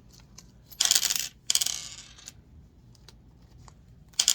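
Small steel RC axle parts clinking and rattling against each other and a hard surface in three short bursts: about a second in, again just after, and once near the end.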